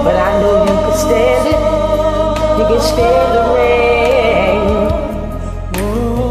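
A woman singing, her voice bending through runs, over a karaoke backing track.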